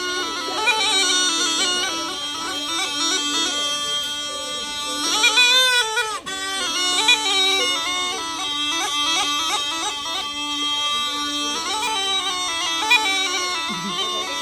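Pungi (been), the snake charmer's gourd pipe, playing a winding melody over a steady drone, with a brief break in the sound about six seconds in.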